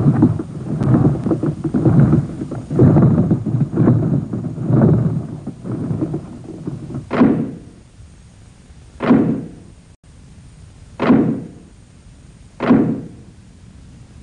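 Cartoon sound effects: a run of low rumbling thuds, then four separate sharp thumps about two seconds apart, each dying away quickly.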